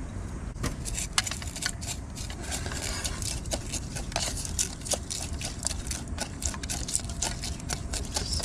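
Wooden spatula stirring milk, vermicelli and nuts in a small camping pot, with quick irregular clicks and scrapes against the pot from about half a second in, over a steady low rumble.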